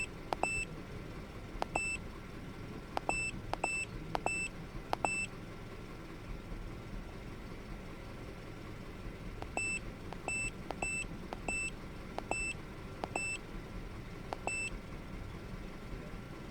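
Short high electronic beeps, each with a faint click, as buttons on a handheld device are pressed; about five beeps in the first five seconds, then about eight more from about ten seconds in. Underneath, the car's engine idles with a low steady rumble.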